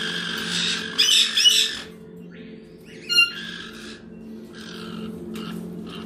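Caique parrots squawking: a burst of harsh, screechy calls about a second in, then one short, sharp high call about three seconds in.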